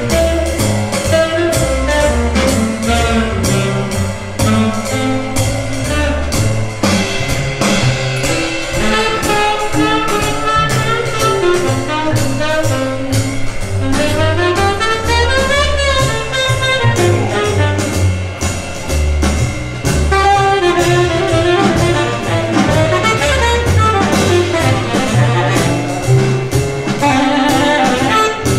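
Jazz recording with saxophone and brass over a bass line and drums, played back loud through a hi-fi system with Martin Logan Neolith electrostatic loudspeakers.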